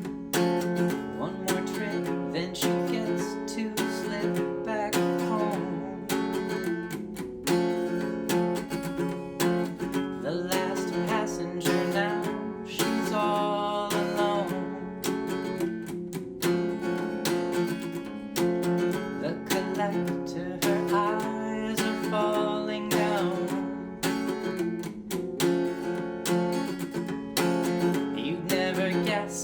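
Acoustic guitar strumming steadily in an instrumental passage of a song.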